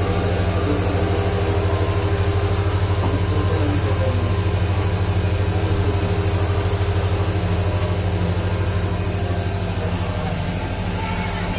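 Motor of a gold-jewellery design-cutting machine running with a steady low hum while its spindle cutter works gold pendants. It eases slightly near the end.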